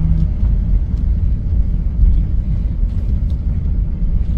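Steady low rumble of a Hyundai Starex camper van rolling slowly, heard from inside the cabin: engine and road noise.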